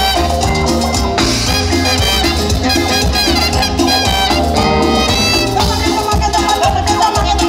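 Live cumbia band playing: a saxophone lead over a steady Latin percussion beat, with bass and other instruments filling in.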